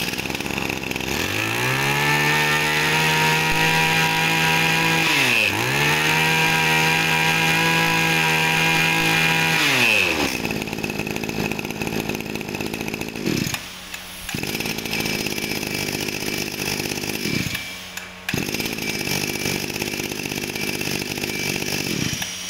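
Robin 23cc two-stroke brush cutter engine pull-started, catching about a second in and revved high, with one brief dip in speed near the middle. About ten seconds in it drops back to idle, and the idle sags briefly a few times.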